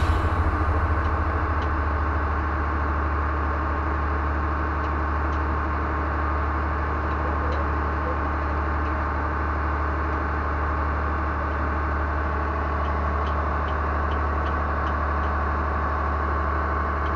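A river passenger launch's engine running steadily: an even, low drone that does not change.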